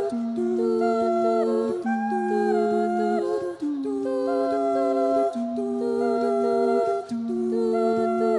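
A cappella vocal group humming sustained chords in several-part harmony, the voices moving together to a new chord about every second, with a low held bass line beneath.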